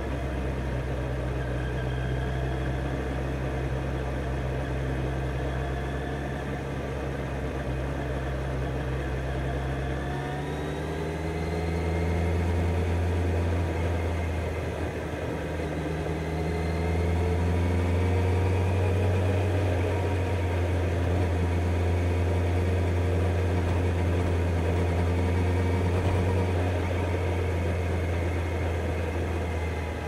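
Kawasaki Z900 inline-four engine running at low, steady revs, then climbing slowly in pitch from about a third of the way in and holding at somewhat higher revs.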